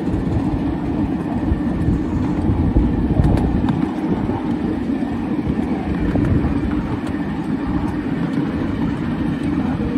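A 7¼-inch gauge miniature railway train rolling along the track, heard from on board: a steady low rumble of wheels on rail, with a few faint clicks about three seconds in.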